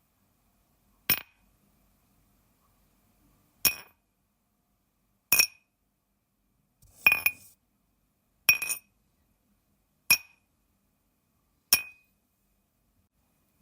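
Glass clinking: seven sharp, separate clinks spaced about one and a half to two and a half seconds apart, each with a brief bright ring. The fourth and fifth are doubled, with a short rattle after the first hit.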